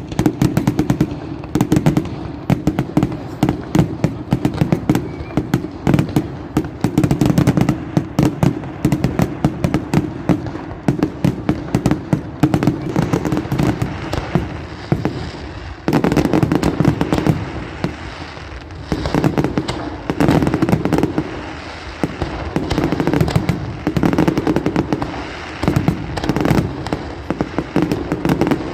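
Fireworks display going off in a dense barrage of bangs and crackling reports, many per second. It eases briefly twice, about two-thirds of the way in and again near the end, before picking up again.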